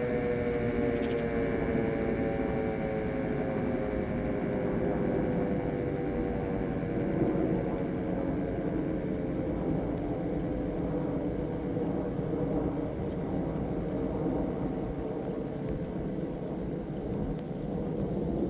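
E57 electromechanical siren winding down after its tone: the howl slowly falls in pitch and fades out over about ten seconds as the rotor coasts to a stop, leaving a steady rushing noise.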